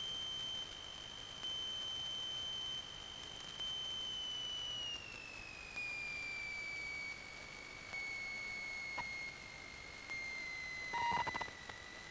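A faint, steady high-pitched whine in the headset intercom audio that slides down in pitch about five seconds in and holds at the lower pitch, with a brief faint crackle near the end.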